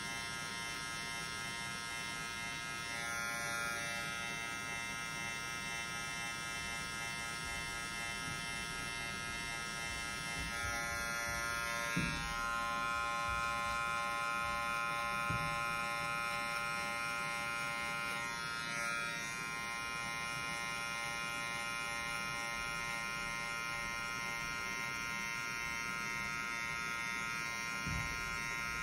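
TRU Barber cordless hair clipper running steadily as its blade cuts short hair on the side and back of the head, a buzzing motor hum that shifts slightly in pitch a few times as it is worked. A few soft knocks come through.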